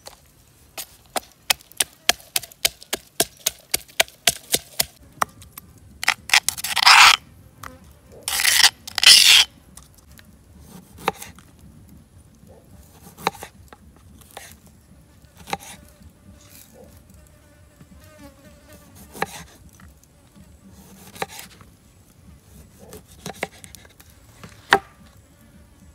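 A pestle pounding chilies in a stone mortar, sharp knocks about four a second for several seconds. Then two loud scrapes as the chili paste is scraped out of the mortar. After that, scattered taps of a knife slicing limes on a wooden cutting board.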